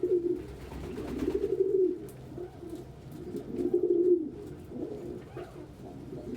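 Domestic pigeons cooing: several drawn-out, low coo phrases a second or two apart, typical of a cock pigeon's courtship cooing as he dances for a hen.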